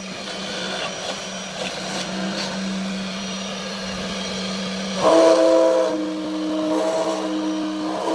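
High-speed spindle of a large-format CNC foam router running with a steady whine and hiss. About five seconds in, the whine jumps higher and gets louder.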